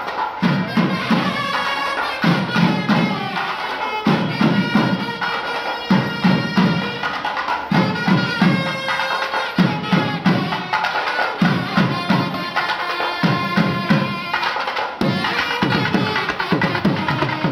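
Temple processional music: a nadaswaram-type double-reed pipe plays a continuous, shrill melody over a thavil barrel drum beaten with a stick, the drum's low strokes coming in repeated phrases about every two seconds.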